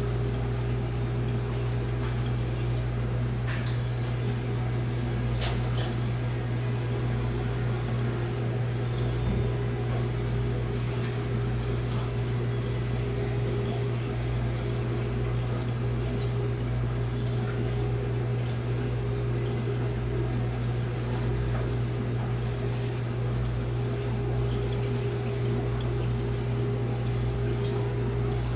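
Blue #2 steel santoku blade being stroked on a Naniwa Pro 1000 whetstone: a soft, rhythmic scraping hiss at about one stroke a second. A steady low hum runs underneath and is the loudest sound.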